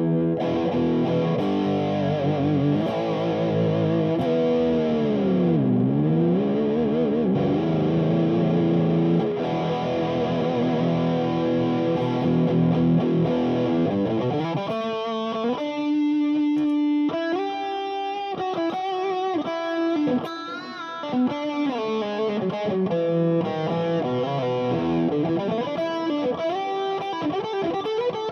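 Fernandes FST-65 electric guitar played with a distorted tone. Sustained chords ring for the first half, the whole chord dipping in pitch and coming back up about six seconds in. It then moves to a single-note lead line with string bends and vibrato.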